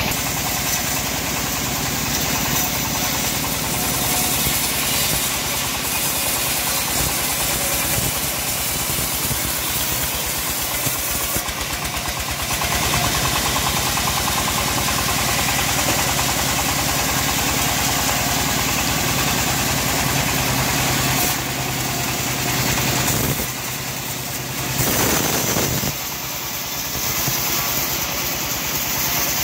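Stationary engine driving a homemade band sawmill, running steadily, with a brief dip and then a short louder burst a little before the end.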